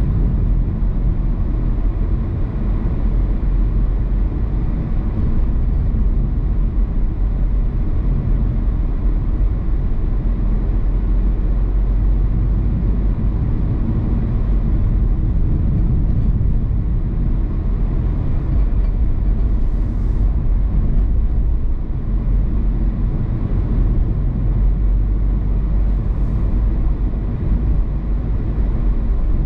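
A car driving along a road: a steady low rumble of tyres on the road surface and the running engine.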